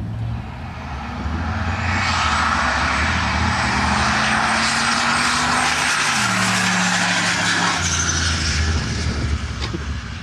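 Turbocharged Ford Crown Victoria's V8 at full throttle on a drag-strip pass, growing louder as it nears, with a thin high turbo whine above the exhaust. The engine's pitch climbs, then drops at a gear change about six seconds in, and the sound fades as the car runs off down the track.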